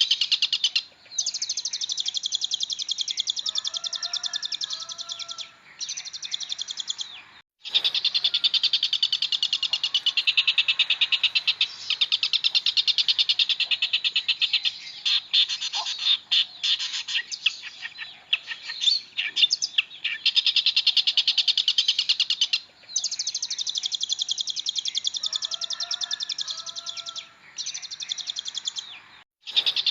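Long-tailed shrike (pentet) singing a fast, dense chattering song packed with mimicked phrases, broken by a few short pauses and one sudden clean gap about seven and a half seconds in. Fainter, lower whistled phrases sound under it twice.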